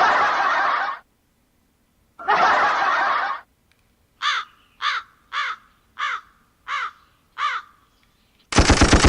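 Built-in sound-effect pads of an ICKB SO8 live-streaming sound card being played one after another. First come two short hissing noise bursts, then six short calls each falling in pitch, then a fast rattling burst of about ten pulses a second near the end.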